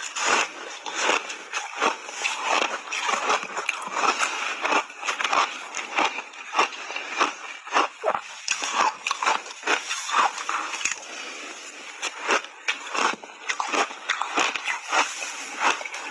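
Close-up crunching of refrozen block ice being bitten and chewed: a continuous run of sharp, irregular crunches and cracks.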